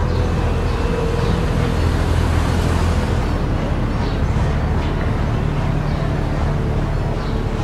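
Cars driving slowly: a steady low engine hum over a wash of road noise, its pitch stepping up a little past the middle.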